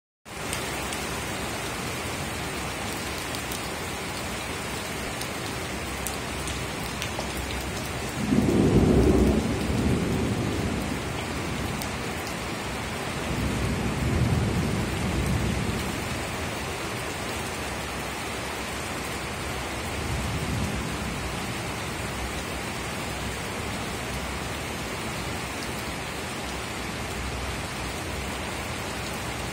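Heavy rain falling steadily on a wooden deck and the surroundings, with thunder. A loud rumble starts suddenly about eight seconds in and dies away over a few seconds, and two weaker rolls follow, one a few seconds later and a faint one around twenty seconds in.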